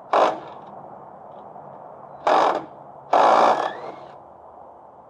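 Impact wrench hammering in three short bursts, the last about twice as long as the others, loosening a fastener on a riding mower's steering.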